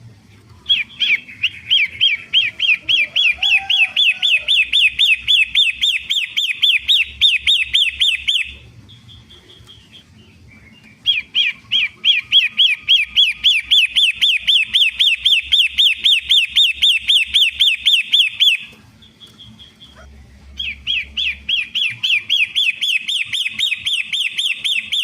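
Long-tailed shrike singing in three long, loud bouts of rapidly repeated shrill notes, about four to five a second, each bout lasting several seconds with short pauses between; a lure song for getting a kept shrike to sing.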